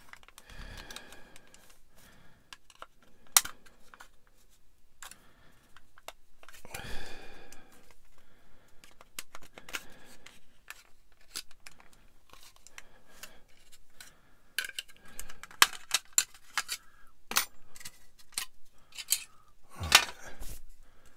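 Scattered clicks, taps and light rustles of plastic model-kit parts and hobby tools being handled, with a few sharp clicks, the loudest about three seconds in.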